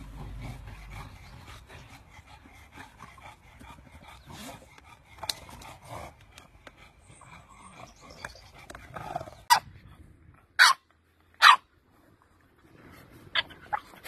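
English bulldogs barking: after several seconds of quieter scuffling, three loud, short barks come about a second apart, followed by a few fainter barks near the end.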